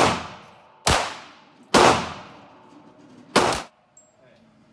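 Four handgun shots on an indoor shooting range, each trailing off in a ringing echo off the range walls. The first three come about a second apart; the fourth follows after a longer pause and stops short.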